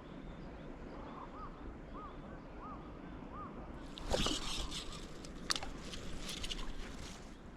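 Four faint, evenly spaced chirps, then a louder spell of rustling with a few sharp clicks, like fishing gear or a bag being handled.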